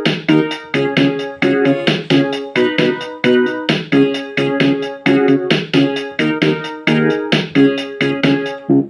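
Casio HT-3000 synthesizer keyboard playing chords with its Casio Chord accompaniment: quickly decaying keyboard notes struck in a steady rhythm, several a second.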